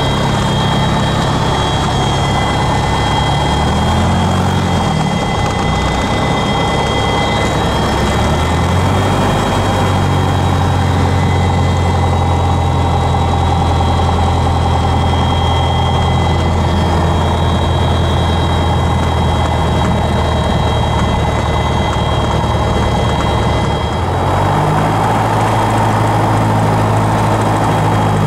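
Piper PA-28's piston engine and propeller heard from inside the cockpit while taxiing: a steady low drone whose pitch shifts about four and nine seconds in, and again near the end, as the throttle changes.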